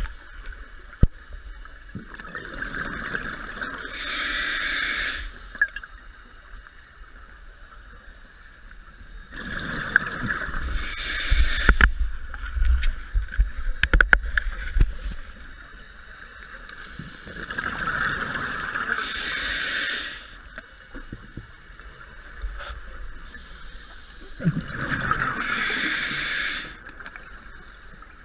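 A scuba diver breathing through a regulator underwater: four breaths about seven seconds apart, each a hiss of inhaled air and a gurgling rush of exhaled bubbles.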